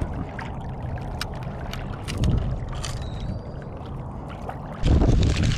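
Shallow salt water sloshing and gurgling around a wading angler's legs, with small splashes and ticks and a low wind rumble on the microphone. About five seconds in, the rumble suddenly grows much louder.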